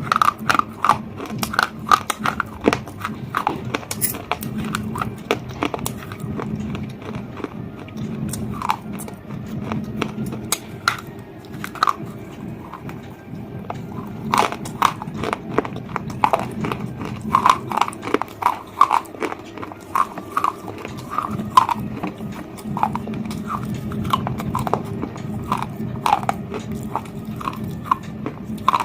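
Close-miked biting and chewing of a hard, brittle food, with many sharp crunches and crackles one after another.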